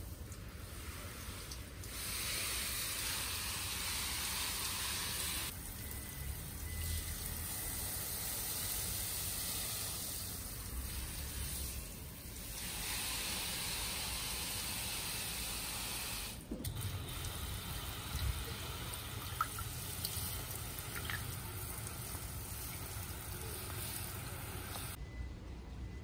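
Garden hose spray nozzle spraying water onto potted plants and leaves: a steady hiss that swells and eases several times, stopping near the end.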